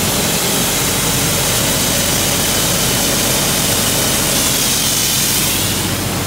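Towable air compressor running steadily: an even engine drone under a loud, constant hiss of air, with its outlet valve opened to send air to the drilling rig's hoses.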